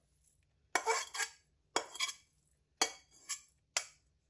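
Metal slotted spatula scraping and knocking against a metal karahi as cooked shredded turnip is scraped out into a plastic bowl. Four strokes about a second apart, each starting sharply and fading quickly.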